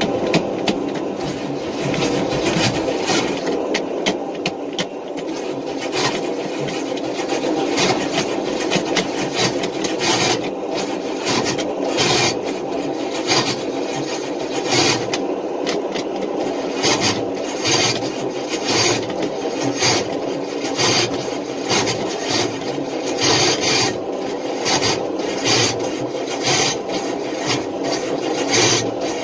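Starter motor cranking the engine over and over without it catching, with a continuous rasping grind and uneven louder pulses: the starter chewing at a worn flex plate ring gear.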